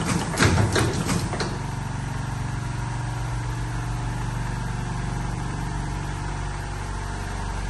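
Automatic slim cigarette rolling machine running: a rhythmic clacking of its mechanism, about four knocks a second, stops about a second and a half in, leaving the steady hum of its motor.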